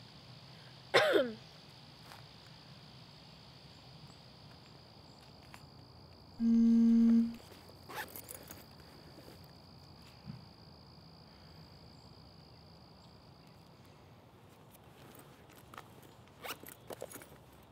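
A zipper pulled twice: a quick falling zip about a second in and a longer, even zip near the middle, with a few soft handling clicks near the end.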